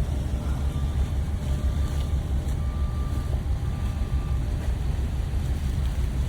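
Ferry's engines running with a steady low rumble as the ship comes in to dock, with wind noise. A faint high tone sounds on and off in short dashes.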